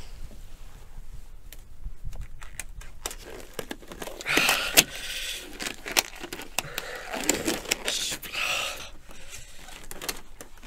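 A white rubber glove being stretched and worked onto a hand in a fumbling struggle: scattered small clicks and crinkles, with louder rubbing and stretching stretches about four seconds in and again around seven to nine seconds.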